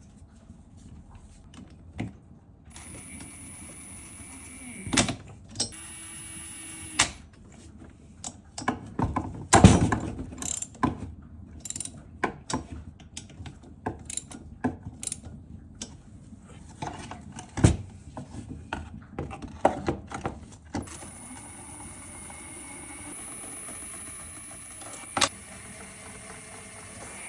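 Workshop sounds of mechanical repair work: a power tool runs with a steady whine in two short stretches early on, then steadily again for the last six seconds or so, with clicks, clinks and knocks of tools and metal parts in between.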